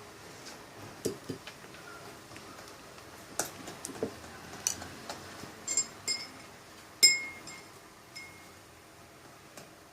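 A spoon stirring slime in a bowl, knocking and clinking against its sides: scattered clinks, several of them ringing briefly, the loudest about seven seconds in.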